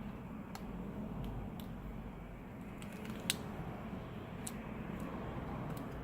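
Small scattered clicks and taps of phone parts being handled while a connector bracket is fitted over a flex cable, with one sharper click about three seconds in, over a steady low hum.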